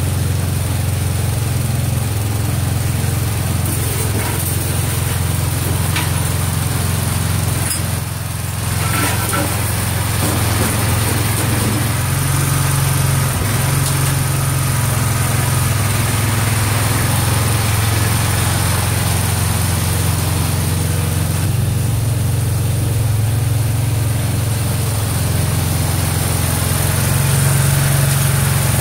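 Garden tractor engine running steadily under light work, its hum dipping briefly about eight seconds in and rising a little near the end.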